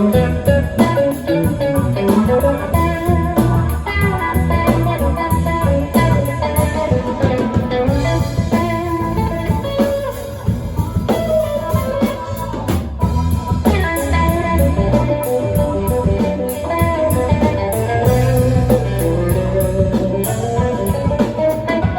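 Live blues band playing an instrumental break: electric guitar lead with bending notes over bass and drums.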